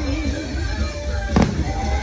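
Fireworks show soundtrack music playing over loudspeakers, with a single sharp firework bang about one and a half seconds in.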